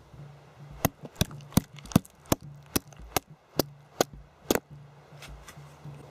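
A blade chopping into a piece of pine: about ten sharp, evenly paced chops, two or three a second, then two fainter taps near the end.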